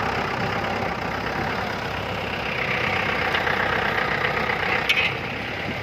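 Mahindra jeep engine idling steadily, with a single short click near the end.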